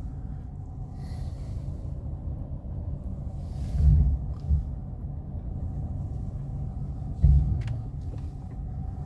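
Mercedes-Benz W126 500 SE's V8 running smoothly on LPG while the car is manoeuvred at low speed, heard as a steady low rumble; the misfire has been cured. Two brief low thumps come about four and seven seconds in.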